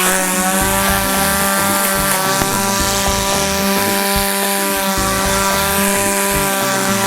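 Two-stroke chainsaw engine running at a steady, high pitch.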